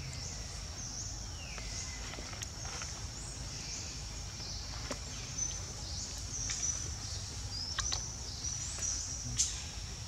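Forest ambience: a steady high-pitched insect buzz with short high chirps over it and a low rumble beneath, broken by a few soft clicks.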